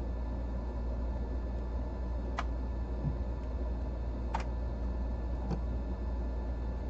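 A steady low hum with three light clicks spread through the middle, as of small parts being handled during reassembly.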